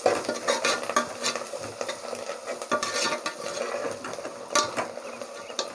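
Metal ladle stirring and scraping a sizzling onion-and-spice masala in an aluminium pressure cooker, with frequent clinks of the ladle against the pot over a steady frying hiss. The stirring keeps the masala from sticking to the bottom.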